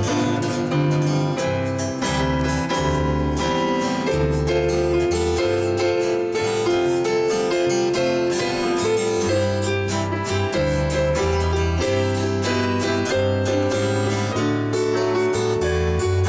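Live band music: strummed acoustic guitars, an electric bass line and a Casio Privia digital piano playing a song together at a steady tempo.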